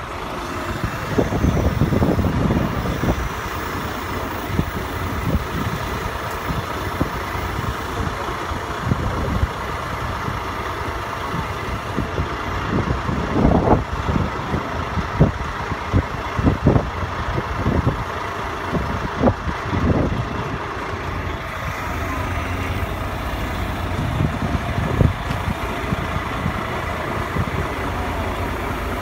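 Mobile crane's diesel engine running steadily while it holds a steel beam, with a few short knocks scattered through.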